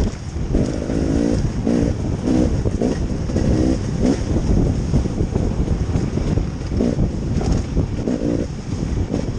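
An off-road vehicle's engine running over a steady low rumble, revving up and easing off again and again, with two stretches of repeated revs.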